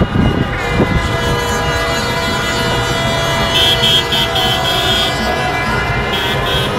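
Many car horns honking together in a celebrating street crowd, several held at once. About halfway through, and again near the end, come runs of short, rapid high beeps.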